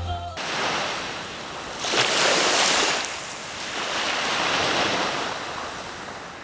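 Small waves washing up onto a sandy beach, swelling and fading in three surges, loudest about two seconds in.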